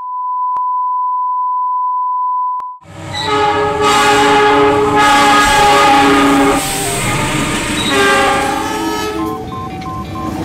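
A steady 1 kHz test-tone beep for about three seconds, then a diesel locomotive's horn sounding in long chords that change pitch every second or so, over engine and rail noise.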